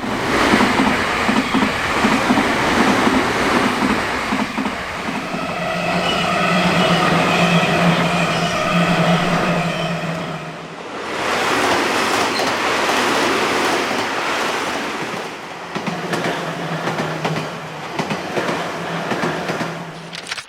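Nankai Main Line electric limited-express trains passing close by at speed over a level crossing: loud, continuous wheel-on-rail clatter and running noise, with steady tones over it during long stretches, likely the crossing's warning bell. The noise dips briefly about eleven seconds in, then builds again with a second train.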